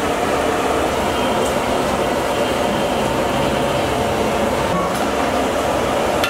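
Steady, loud roaring noise that runs unbroken, with no distinct knocks, clatter or rhythm.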